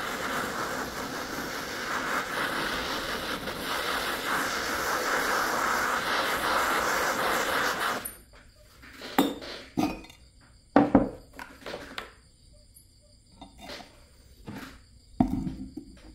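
Handheld gas torch flame hissing steadily for about eight seconds, then shut off abruptly. After it, several separate sharp metallic clinks and knocks.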